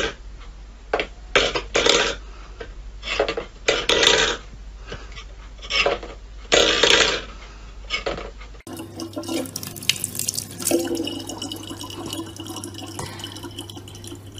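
A stainless steel food bowl pushed around a wooden floor by a cat's paw, clattering and scraping about a dozen times in short bursts. Partway through this gives way to a thin stream of tap water trickling steadily into a plastic bottle.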